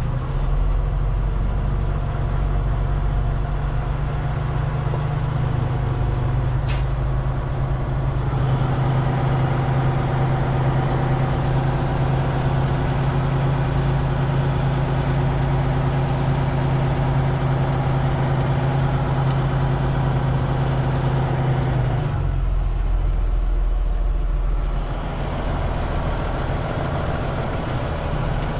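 Semi truck's diesel engine heard from inside the cab, pulling the truck along. Its note rises a few seconds in and holds steady, then drops back toward idle about 22 seconds in. There is one sharp click around 7 seconds.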